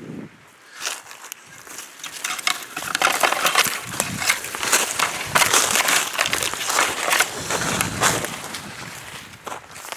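Close, irregular crunching and crackling that builds about a second in, is densest through the middle, and eases off near the end.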